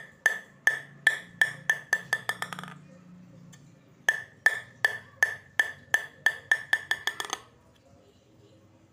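A table tennis ball bounced repeatedly on a Spinlab ZLC wooden blade, each bounce a sharp ringing tick, about two and a half a second. Twice the bounces quicken and die away as the ball settles, around three seconds in and again about three-quarters of the way through. The crisp ring with no buzz is the blade's very clear, vibration-free sound.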